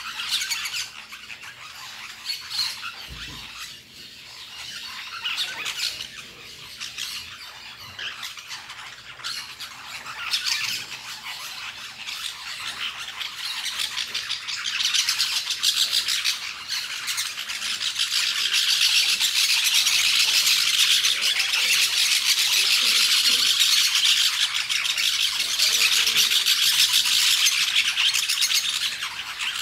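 A flock of parakeets squawking and chattering, the calls growing denser and louder about two-thirds of the way through into a continuous harsh chorus.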